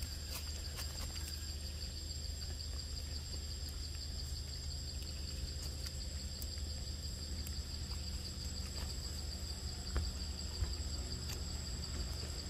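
Steady insect chorus: a high, finely pulsing trill with a thinner, higher steady tone above it, over a low rumble. About ten seconds in there are a few short crackles, like dry leaf litter being stepped on.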